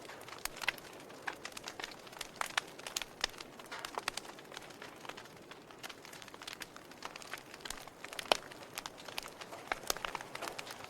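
Logs burning in a fireplace, crackling with irregular sharp pops and snaps over a soft hiss; one louder pop about eight seconds in.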